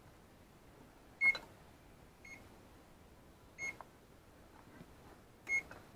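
Electronic oven control panel beeping as its keys are pressed to set the baking temperature: four short, high beeps at uneven intervals of one to two seconds.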